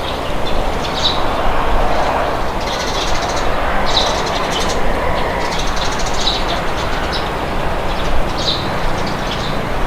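Wind blowing in a steady rush, with small birds chirping again and again in short, high calls over it.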